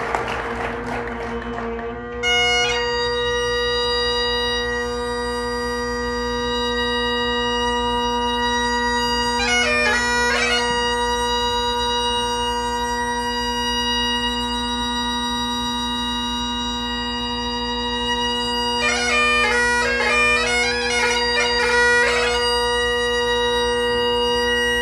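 Great Highland bagpipe: the drones sound under applause that fades out, then the chanter comes in about two seconds in on a long held note, with quick runs of grace notes around ten seconds in and again a few seconds before the end.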